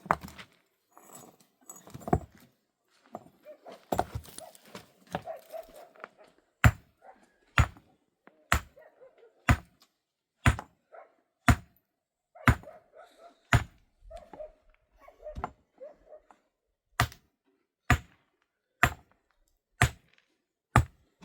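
Heavy blows struck at an even pace of about one a second, after a few irregular knocks in the first seconds.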